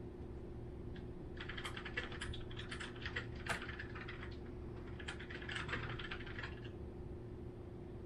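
Long-haired chihuahua puppy scratching and scrabbling with its claws, in two bursts of rapid clicky scratching of a couple of seconds each.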